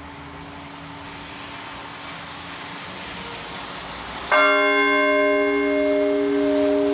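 Russian Orthodox church bell humming faintly from an earlier stroke, then struck once by its clapper about four seconds in. The bell rings out loudly with a rich cluster of tones that keep sounding.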